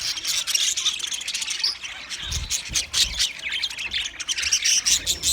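Budgerigars chattering: a fast, continuous stream of high chirps and squawks. A few low thuds come about two seconds in and again near the end.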